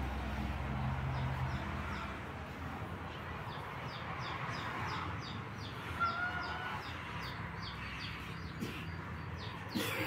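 Small birds chirping over and over in short, high, falling notes, two or three a second, over steady farmyard background noise.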